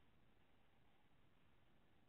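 Near silence: faint steady recording hiss.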